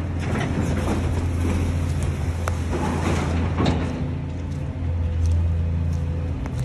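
Steady low engine drone from heavy demolition machinery running, with a few sharp knocks and clanks, the clearest about two and a half and three and a half seconds in.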